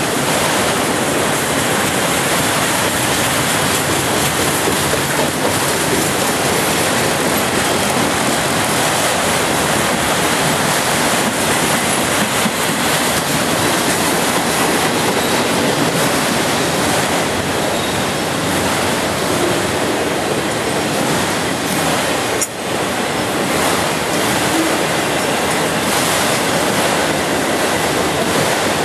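CSX autorack freight train rolling past: a loud, steady noise of steel wheels running on the rails as the cars go by.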